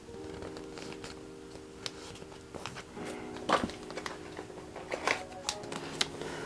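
Plastic photocard sleeves and binder pocket pages crinkling and clicking as cards are slid into the pockets, with sharper crackles about three and a half and five seconds in. Soft background music with held chords plays underneath.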